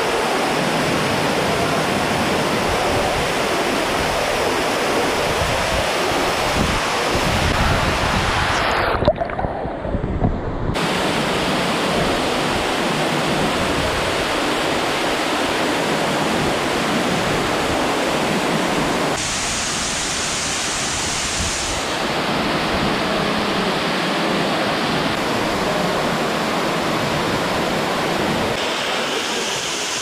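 Tukad Cepung waterfall: a steady, loud rush of water falling into its pool close by. About nine seconds in, the hiss briefly goes dull for a second or two.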